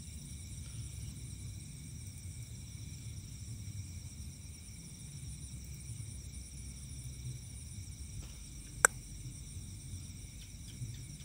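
A steady chorus of night insects trilling in several high-pitched bands over a low rumble of handling noise, with one sharp click about nine seconds in.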